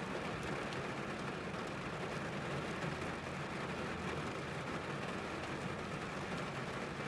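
Rain falling on a car's roof and windows, heard from inside the cabin: a steady patter with scattered separate drop taps.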